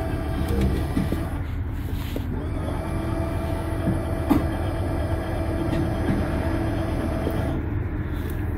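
Electric motor of a 5th-wheel trailer's powered front landing-gear jacks, run from the leveling control panel to lower the nose. It gives a steady whine that pauses briefly about two seconds in and then stops near the end, over a constant low rumble.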